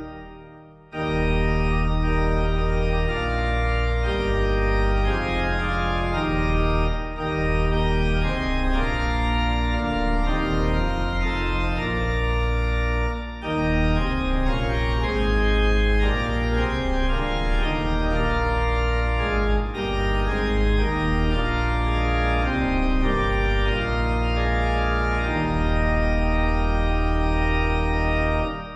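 Organ playing a hymn tune in full sustained chords, with brief breaks between phrases about every six seconds. It fades out at the end.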